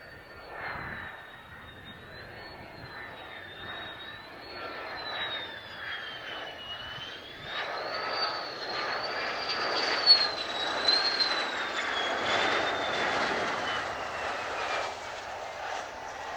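Mitsubishi F-2 fighter's single F110 turbofan jet engine whining on approach, a high whine that wavers in pitch over a rushing roar. It grows louder from about halfway through, is loudest about two-thirds in, then eases off. A single sharp click comes near the loudest point.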